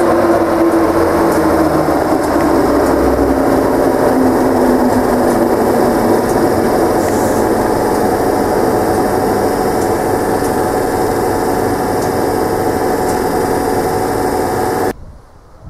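Electric InterCity 225 train standing close by, its traction and cooling equipment humming loudly and steadily, with a tone that falls in pitch over the first few seconds. The sound cuts off suddenly near the end.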